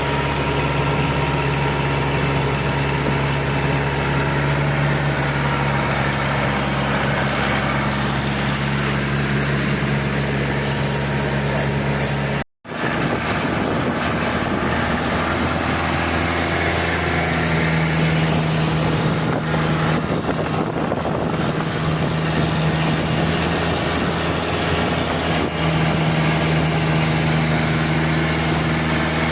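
Boat engine running steadily at an even pitch, with a sudden split-second dropout about halfway through, after which it continues at a slightly different pitch.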